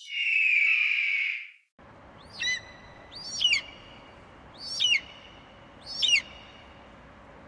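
Bird-of-prey calls. A long harsh screech ends about a second and a half in. Then, over a background hiss, come four short sharp calls, each falling in pitch, about a second apart.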